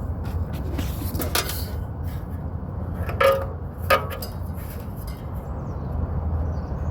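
A few light metallic clinks of tools and parts being handled, over a steady low hum.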